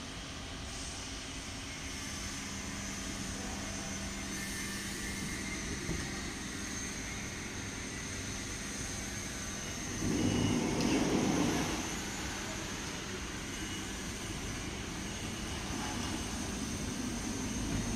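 Steady engine drone, with a louder low rumble swelling for about two seconds near the middle.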